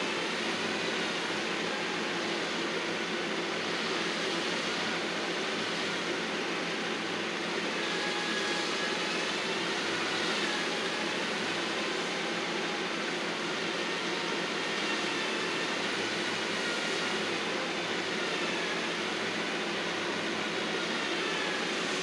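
Engine of heavy landscaping machinery running steadily at a constant level, with a faint whine that wavers slightly in pitch.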